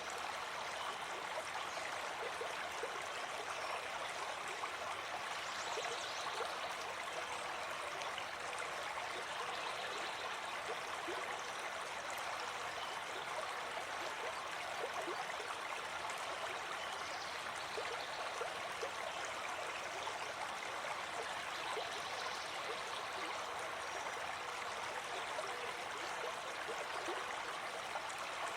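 Running water flowing in a steady, even rush with no breaks or changes.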